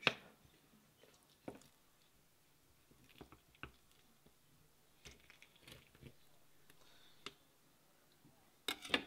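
Kitchen knife cutting open a fish's stomach on a metal sheet pan: scattered faint taps and clicks of the blade and fingers against the tray, with wet handling of the innards and a louder cluster of clicks near the end.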